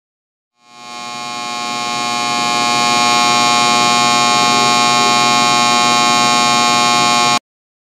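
Electrical buzzing hum of a high-voltage transmission line, the humming or hissing noise put down to corona discharge around the conductors. It swells up over the first couple of seconds, holds steady, and cuts off suddenly near the end.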